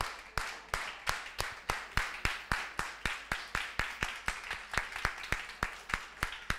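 A roomful of people clapping together in time, speeding up from about two and a half to four claps a second and fading near the end. It is a group rhythm clap used to call an audience to order.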